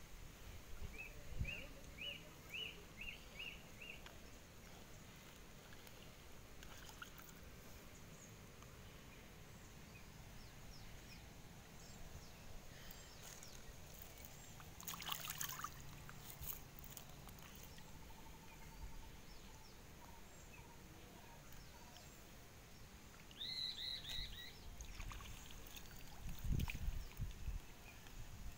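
Quiet outdoor ambience with water sloshing as a monofilament gill net is lifted out of shallow canal water near the end. A bird calls twice: a quick run of about seven short chirps near the start, and a louder call a few seconds before the end.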